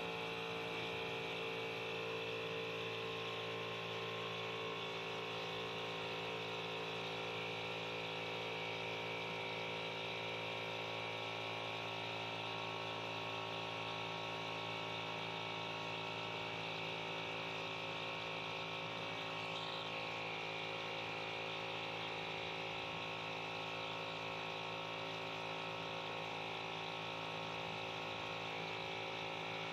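Milwaukee M12 cordless compact inflator running with a steady hum as it pumps up a car tyre.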